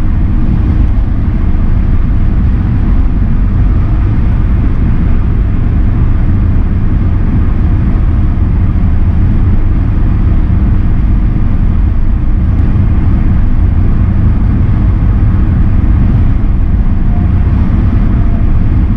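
Steady road and tyre noise of a car driving at highway speed, a loud, even low rumble with no distinct tones or events standing out.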